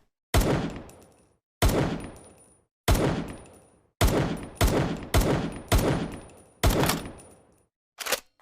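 Makeshift sound effect imitating M1911 pistol shots: eight sharp bangs, each trailing off over about a second, the first three roughly a second apart and the rest coming faster. Near the end comes a shorter, sharp sound.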